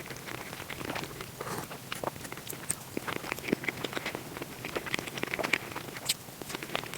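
Mukbang eating sounds played back sped up: a dense, rapid run of chewing, crunching and mouth clicks with no pause.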